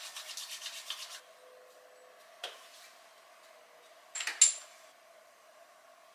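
Palms rubbed briskly together for about a second, spreading a few drops of facial serum, in a fast run of short strokes. A single light click follows about two and a half seconds in, then a brief, sharper, louder sound just after four seconds in as the hands come up to the face.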